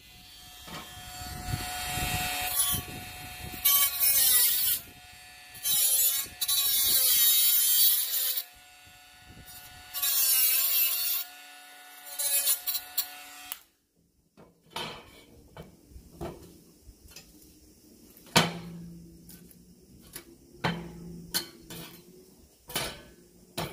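Bosch GWS 12V-76 12 V cordless mini angle grinder running, its whine dipping in pitch each time the disc bites into the work, with repeated loud bursts of grinding noise. It cuts off suddenly about 14 seconds in, giving way to quieter scattered knocks and clatter.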